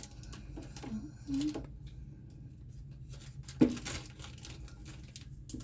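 Plastic bag crinkling as the bidet's supply hose is pulled out of it, with one sharp click about three and a half seconds in.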